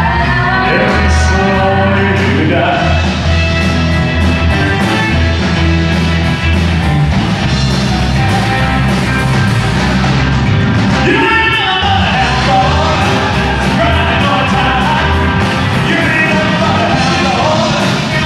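Live rock and roll band playing loudly: a male lead singer over drums, bass guitar and electric guitar.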